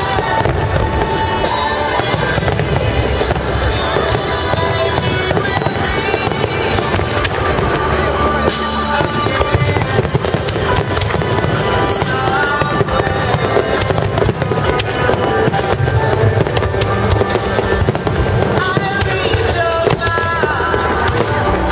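Fireworks display: aerial shells bursting and crackling in a dense, continuous barrage, with music playing along.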